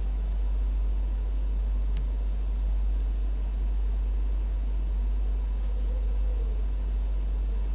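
A steady low hum, with a faint click about two seconds in.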